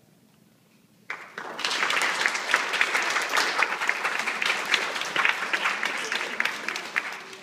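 Audience of young children applauding: dense, fast clapping that starts suddenly about a second in and dies away near the end.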